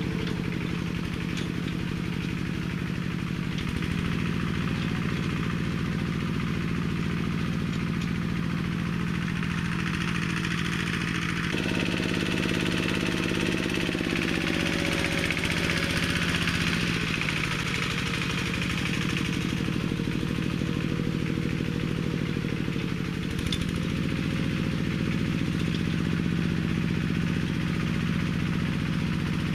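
Engine of a homemade four-wheel-drive minitractor built from a walk-behind tractor, running steadily under load as it drags cultivator tines through wet soil. Its pitch drops about twelve seconds in and rises again past the twenty-second mark.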